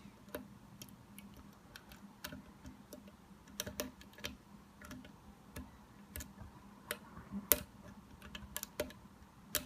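Small irregular metallic clicks and ticks of a lock pick working the pins of a Burg Wächter Profi padlock, with a few louder clicks near the end. The pins are being probed one by one under tension, searching a false set for the spool pin that gives counter-rotation.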